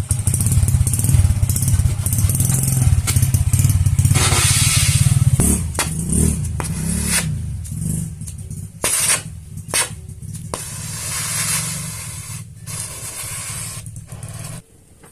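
Motorcycle engine running through its exhaust and being revved a few times, starting abruptly and cutting off near the end.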